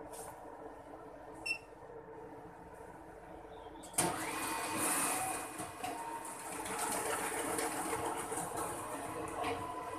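A bank cash recycling machine beeps once as its confirm key is pressed, then about four seconds in its note-handling mechanism starts up with a busy whirring and clattering as it processes the deposited banknotes.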